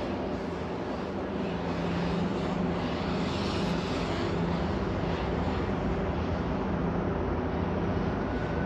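A steady engine drone with a low hum, heard over outdoor city noise, with a brief rise in hiss about three seconds in.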